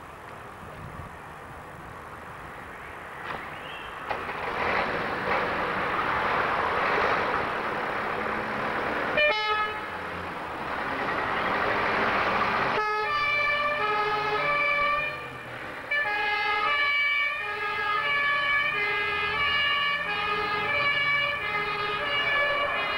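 Fire-brigade ambulance pulling out of the station, its engine running louder from about four seconds in; its siren gives a brief blip near nine seconds, then from about thirteen seconds the German two-tone siren (Martinshorn) sounds, alternating steadily between two pitches.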